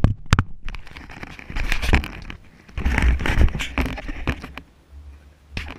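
Rustling and scraping with scattered clicks and knocks, loudest about one and a half to two seconds in and again about three seconds in, over a low rumble.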